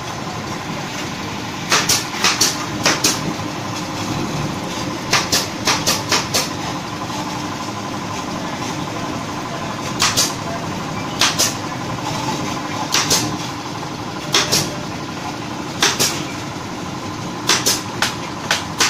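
Electric chili grinder with a Hitachi motor running steadily while it grinds soaked whole chilies into paste. Sharp knocks come at irregular times, some single and some in quick runs of three to five.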